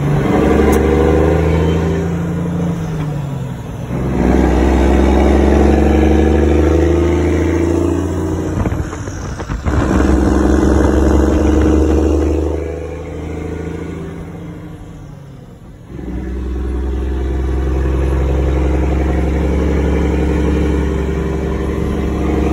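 Mack E6 inline-six diesel pulling the truck on the road, heard from inside the cab, now running after its injection pump drive gear was retimed to the camshaft. The engine note climbs as it pulls and falls away between pulls, easing off for a few seconds before coming back in strongly about three quarters of the way through.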